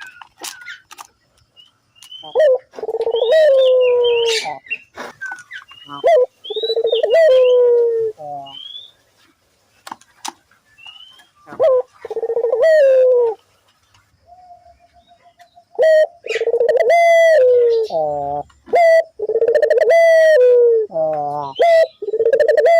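Puter dove (ringneck dove) calling vigorously: repeated coos, each a second or so long and falling slightly in pitch, coming faster in the second half. Short high chirping glides sound between the coos, mostly early on.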